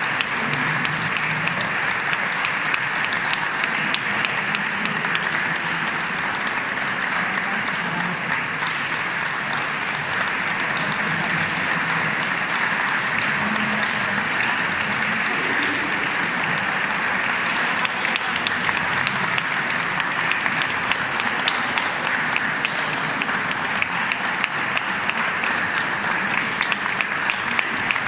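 Audience applauding: a long, steady round of dense clapping that neither builds nor fades.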